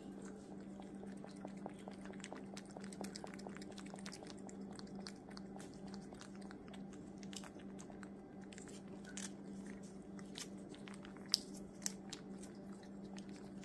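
A domestic tabby cat licking a lickable puree treat from a squeeze tube close to the microphone: a run of quick wet clicks and smacks, with two sharper clicks near the end, over a steady low hum.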